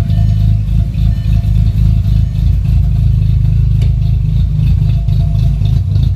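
Volkswagen Jetta MK4 2.0 four-cylinder engine idling unevenly with a cylinder misfire that new spark plug wires have not cured.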